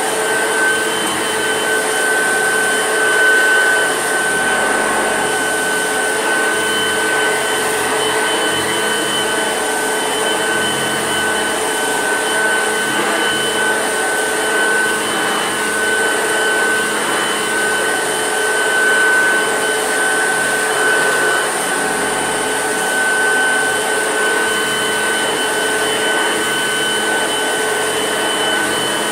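Old Hoover Junior upright vacuum cleaner running steadily, a continuous motor whine over a hiss of air, without the squeak or screech of the other machine: it just purrs along.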